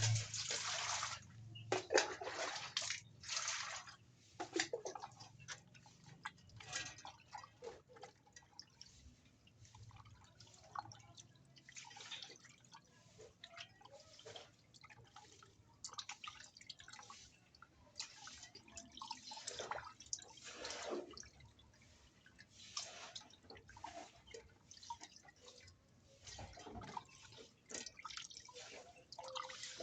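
Raw chicken being washed by hand in water: irregular splashes, sloshes and drips, some sharper and louder, others soft.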